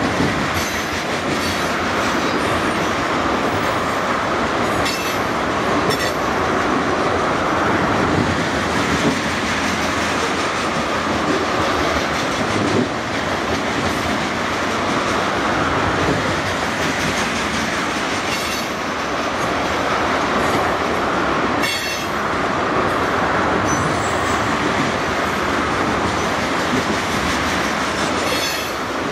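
Ethanol tank cars of a unit freight train rolling past at speed: a steady rush and rumble of steel wheels on rail, with a few sharp clacks at scattered moments.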